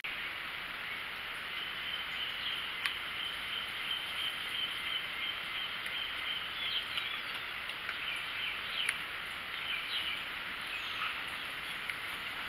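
Rural outdoor background: a steady high-pitched hiss of insects and birds, with a faint held tone for a few seconds and a few sharp clicks.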